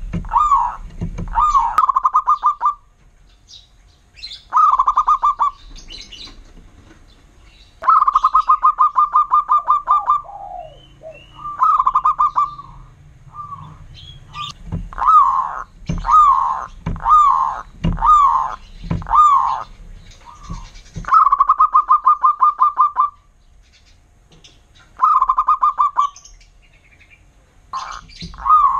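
Zebra dove (perkutut) singing its loud cooing song in phrases a few seconds long with short pauses between them. Some phrases are fast rolling runs of many coo notes, and others are slower, separate coos.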